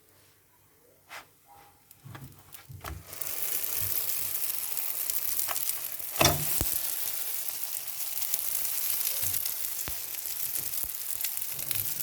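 Food frying in a frying pan: a steady sizzle sets in about three seconds in, after a few light knocks. One sharper knock comes about halfway through.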